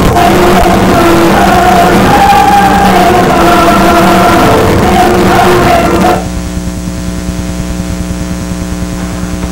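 Loud music with singing that cuts off abruptly about six seconds in, leaving a steady hum.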